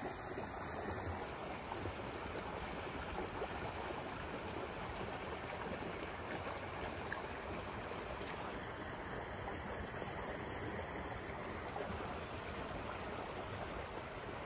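Steady rushing of muddy floodwater flowing fast along a stone-walled channel.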